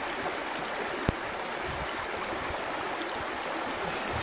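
Steady rush of a stream flowing over rocks, with a single sharp click about a second in.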